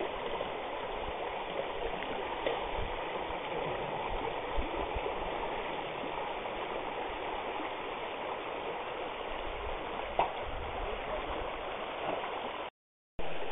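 Shallow river water rushing steadily through a riffle by a log jam, with a couple of small knocks; the sound cuts out for a moment near the end.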